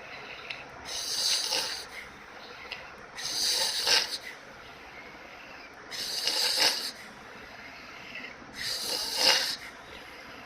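Snoring: four noisy snores in a slow, even rhythm, about one every two and a half seconds, each growing louder to a peak near its end.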